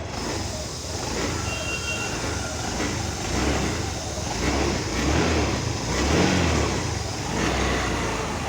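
Honda Dio scooter's single-cylinder engine running, with the throttle blipped to rev it several times.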